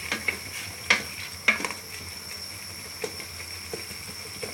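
Spoon knocking and scraping against a cooking pan, about six sharp clinks, while stirring and mashing a simmering onion-and-spice masala, with a faint sizzle of the boiling mixture underneath.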